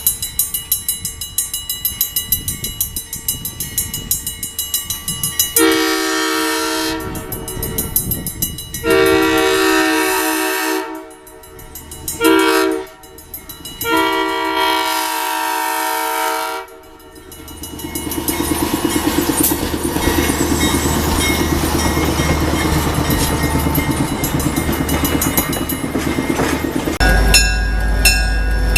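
Steam locomotive No. 7470 at work: steady rhythmic exhaust chuffs, then its steam whistle blown in four blasts, long, long, short, long, the grade-crossing signal. After the whistle comes a broad rushing noise of the train running, and near the end a steady low hum with regular clicks.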